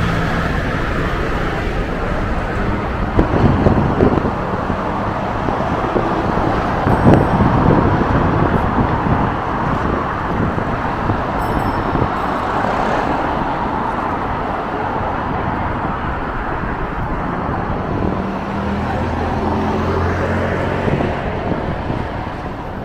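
Busy street traffic: cars and other motor vehicles running past in a steady wash of road noise, with a low engine hum swelling a few seconds before the end.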